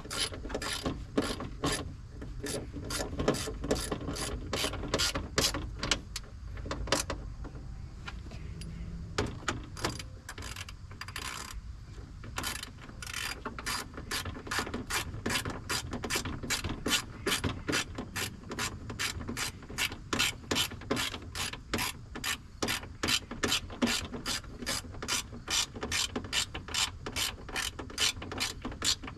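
Steady, evenly spaced mechanical clicking, about three clicks a second, that keeps the same pace without pause.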